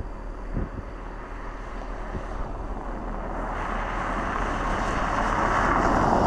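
Pickup truck driving fast along a snow-packed ice road toward the microphone. Its tyre and engine noise grows steadily louder as it nears and is loudest near the end. A few low wind thumps hit the microphone in the first second.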